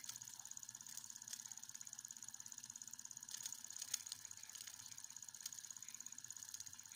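Wilesco D2 miniature steam engine running, its oscillating brass cylinder chuffing in a rapid, even beat of about ten strokes a second. One sharper click comes about four seconds in.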